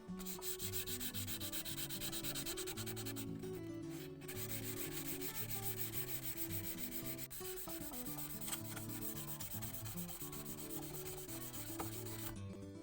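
Steel Marples chisel being wet-sanded on 1000-grit waterproof sandpaper: fast, steady back-and-forth rubbing strokes, with a brief pause about three seconds in. Soft guitar music plays underneath.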